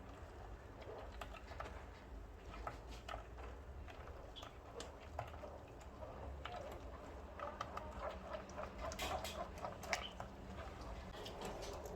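Scattered light taps and clicks of kitchen things being handled, coming more thickly in the second half.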